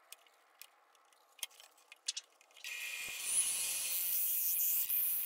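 A few light clicks as a chuck key is worked in a drill press chuck. About two and a half seconds in, the drill press starts and runs steadily with a hole saw fitted: a loud, high-pitched whir with a constant tone.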